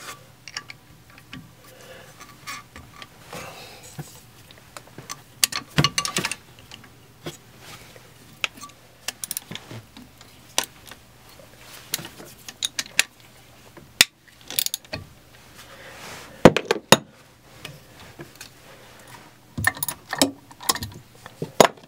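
Irregular metallic clicks and clanks of a wrench, with short ratcheting runs, on the alternator mounting bolts of a sailboat's inboard engine. The bolts are being loosened to take up slack in a loose alternator belt.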